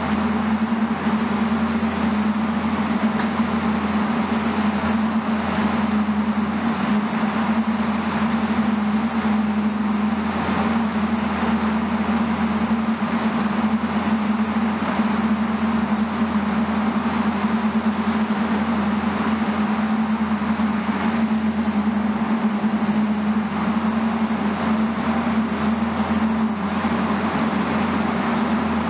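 Heavy demolition machinery running steadily: a constant low hum with an even hiss over it, and no crashes or impacts.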